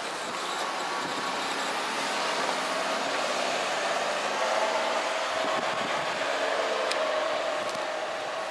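A motor vehicle passing, its noise swelling gradually to a peak mid-way and easing off near the end.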